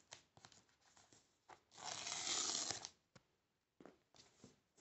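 Hands handling a cardboard iPad box with small taps and rustles. About two seconds in there is a loud, rasping tearing sound lasting about a second, the sound of the wrap being torn open.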